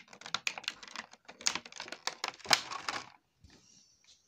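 Clear plastic packaging tray crackling and clicking in a quick, irregular run as it is handled and pried open to free the action figure; the crackling stops about three seconds in.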